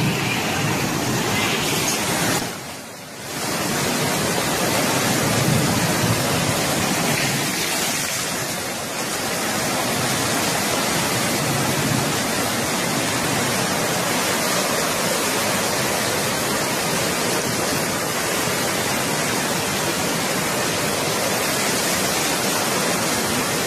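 Flash-flood torrent of muddy water rushing past: a steady, dense noise of fast-moving water, dropping briefly about three seconds in.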